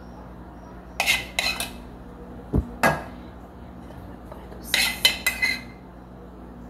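Dishes and cutlery clattering off to the side: a quick run of clinks about a second in, a dull knock and a click in the middle, then another run of clinks at about five seconds.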